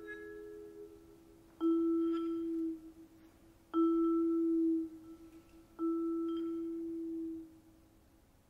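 Vibraphone played with four yarn mallets in slow, sparse chords. A soft note rings at the start. Then three louder chords are struck about two seconds apart, and each rings for about a second and a half before fading.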